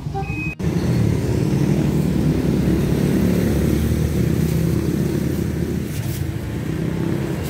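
A motor vehicle's engine running close by: a steady low rumble.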